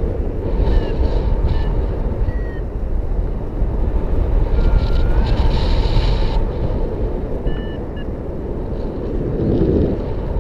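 Air rushing over the microphone during a paragliding flight, a steady low wind buffeting that swells and eases. Faint short high chirps come and go over it.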